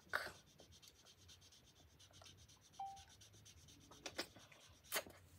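Faint rubbing and scratching of a felt-tip marker drawing on the paper of a spiral notebook, with a couple of soft clicks in the second half.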